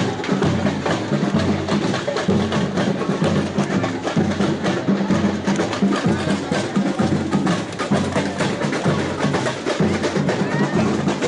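Music with drums and percussion keeping a steady beat over a repeating bass line.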